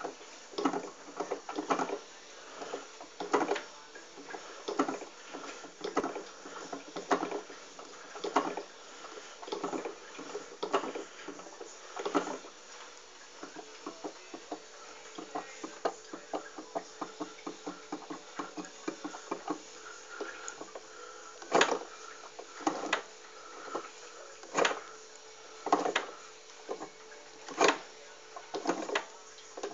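A Simson Spatz moped making an odd noise: a series of sharp clicks, irregular at first and then louder and more even, about one a second, over a faint steady hum.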